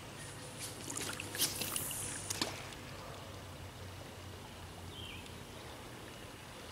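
Shallow river water splashing and trickling, with a handful of short sharp splashes between about half a second and two and a half seconds in, then a steady faint wash of moving water.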